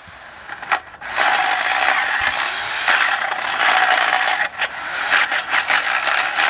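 Handheld electric drill running under load as it bores into the tower base, a continuous rough grinding-rattling noise. It starts in full about a second in and lets up briefly partway through.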